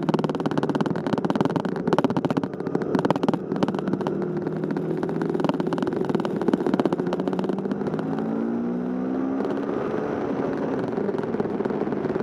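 Motorcycle engine running while riding, heard from the bike itself, with choppy buffeting in the first few seconds. The engine pitch climbs between about eight and ten seconds in as it accelerates, then holds steady.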